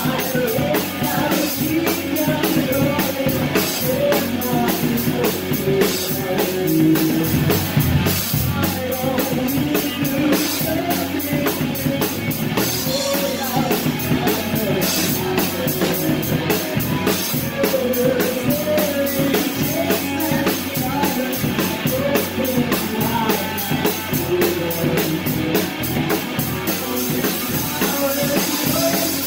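A rock band playing loud, heard close to the drum kit: fast, dense drumming with constant cymbal hits over the band's pitched instruments.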